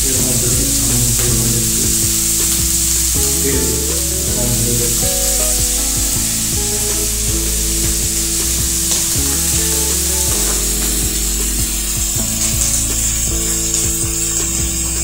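Cauliflower florets sizzling as they fry in hot oil in a wok. The sizzle grows fainter about ten seconds in.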